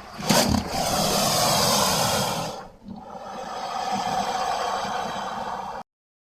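Crocodile vocalising: two long, rasping calls, the first about two and a half seconds and the second about three, which ends abruptly.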